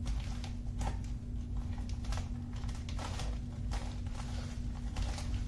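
Cardboard and plastic webcam packaging being worked open by hand: irregular small clicks, taps and scrapes, a few each second, over a steady low hum.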